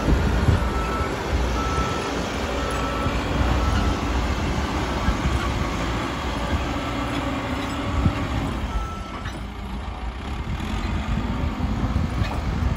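Caterpillar 434E backhoe loader's diesel engine running steadily as the machine works the soil, with its reversing alarm beeping at a steady on-off rhythm at the start, briefly again a couple of seconds later, and once more about two-thirds of the way through.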